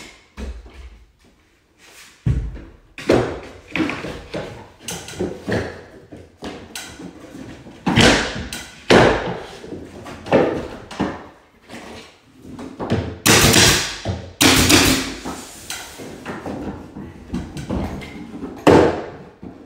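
Irregular knocks and thuds as a long piece of wooden crown molding is handled, bumped and pressed up against the ceiling, with louder, sharper bursts about two-thirds of the way through.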